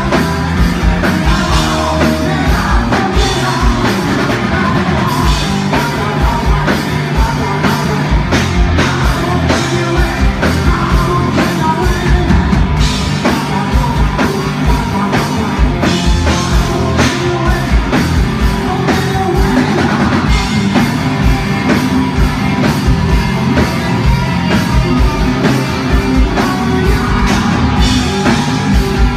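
Hard rock band playing live: a singer's vocals over electric guitars and drums, loud and without a break.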